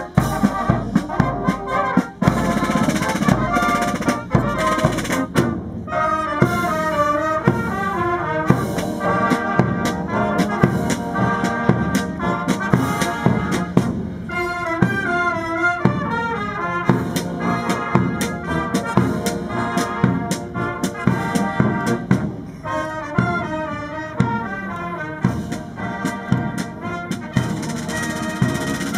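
Military marching band playing a march in the open: brass led by trumpets and trombones, with sousaphones on the bass line, over a steady beat of snare and bass drums.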